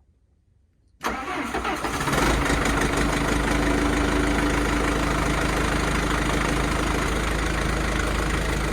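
John Deere backhoe's diesel engine starting: the starter cranks about a second in, and within about a second the engine catches and runs steadily. It fires right up on brand new batteries.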